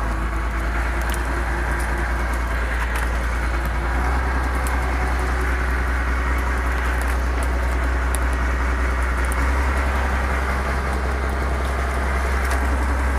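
Fishing boat's engine running with a steady low drone, with scattered light clicks from fish being handled on the deck.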